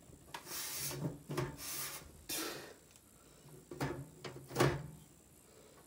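Computer case side panel being worked onto its tabs: a few scraping slides, then sharp knocks as it goes into place.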